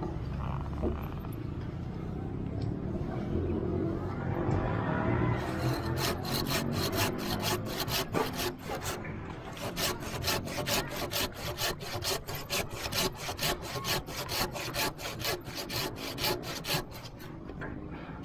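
Curved folding pruning handsaw cutting through a live narra branch. The rasping is uneven at first, then settles about five seconds in into quick, even strokes, about three or four a second, which stop just before the end.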